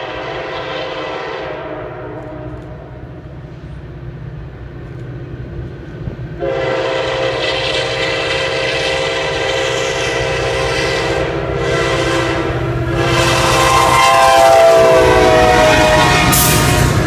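CSX diesel locomotive's horn sounding as the passenger train approaches: a chord fading out at first, then a long loud blast starting about six seconds in, broken briefly twice, whose pitch drops as the locomotive goes by. Near the end the locomotive's engine rumble and the train's wheels on the rails take over.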